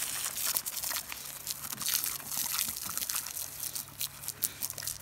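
Garden hose jet spraying and spattering on the lawn and on a dog playing in the water, a steady hiss full of irregular crackles and splashes.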